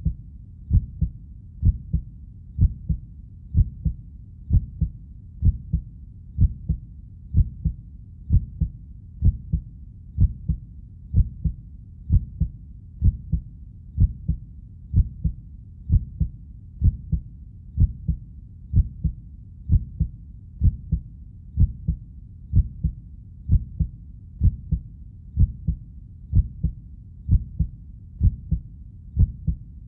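Heartbeat: a steady rhythm of paired low thuds, the lub-dub of each beat, at about one beat a second.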